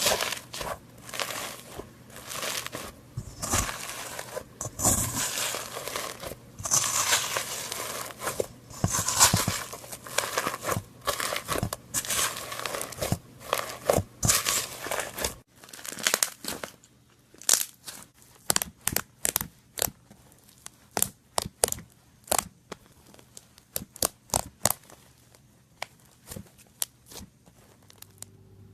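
Slime being squeezed and stretched by hand, its trapped air bubbles popping in a dense crackle. About halfway through the crackle thins into a string of separate sharp pops.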